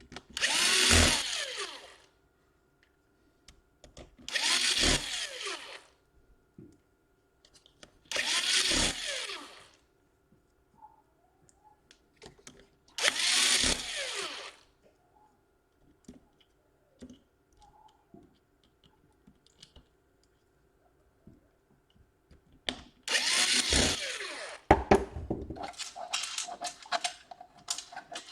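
Small electric screwdriver spinning laptop case screws in short runs: four separate runs of about a second and a half, with small clicks between, then a quicker series of short bursts near the end.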